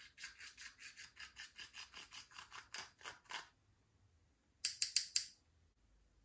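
Slime being mixed by hand or with a tool: quick, even squishing strokes, about five a second, then after a short pause a quick run of about four louder, sharper clicks.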